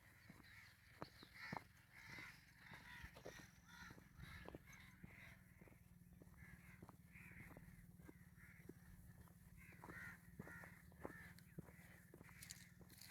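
Faint crows cawing over and over, with soft footsteps of someone walking along a path.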